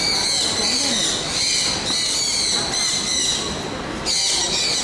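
Busy exhibition-hall background: a steady high-pitched whine over indistinct crowd voices.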